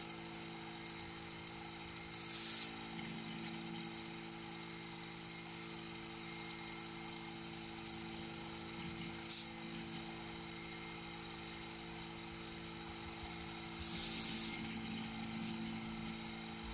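Vacuum pump running with a steady hum while it degasses freshly mixed silicone in a vacuum chamber. A few short hisses of air break in, the longest late on, as the valve is worked to keep the silicone from foaming over the container.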